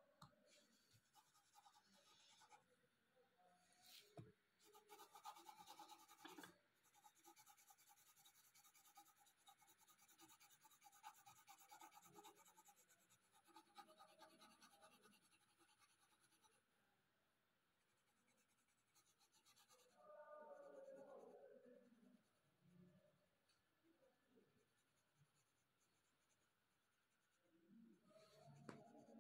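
Colored pencil shading on paper: faint, rapid back-and-forth scratching strokes, dense through the first half and sparser later. A brief faint low sound comes about two-thirds of the way in.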